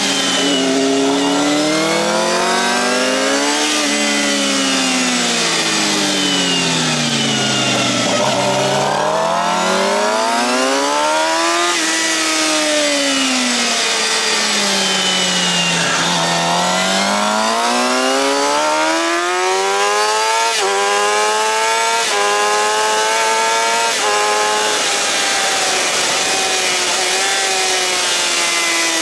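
Suzuki GSX-R750 inline-four with a Yoshimura R-11 slip-on exhaust at racing speed: the revs climb hard and fall away under braking again and again, with three quick upshifts in a row in the second half, over steady wind rush on the fairing.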